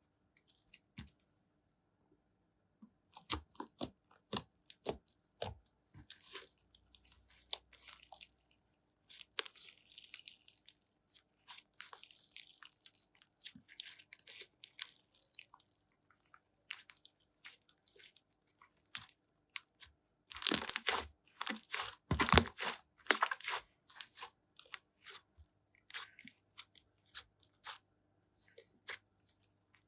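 Slime mixed with cream being squished and kneaded by hand, making scattered sticky clicks and crackling pops. A dense flurry of louder pops comes about two-thirds of the way through.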